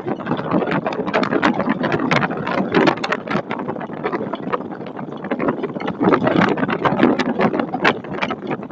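A storm's wind and rain battering an outdoor webcam microphone: a rough, crackling rush that swells and eases in gusts, louder again about six seconds in.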